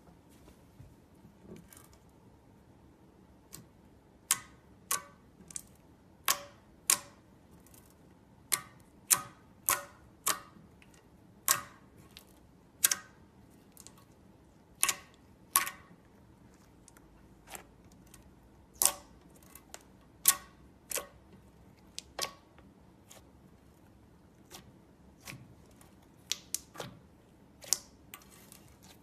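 Slime being kneaded and pressed, giving irregular sharp clicking pops, roughly one a second.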